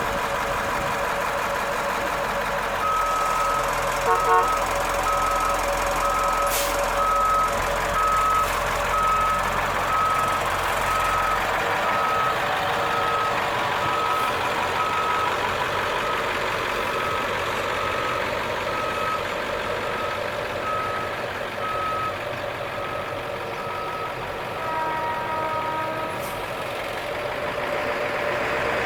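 School bus engine idling steadily. An evenly repeated high electronic beep starts a few seconds in and stops near the end.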